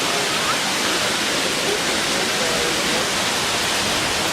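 Steady rush of Multnomah Falls' falling water, an even, unbroken roar.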